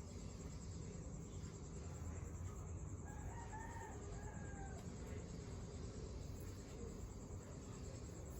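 A rooster crowing once, faint, about three seconds in, over a steady low hum.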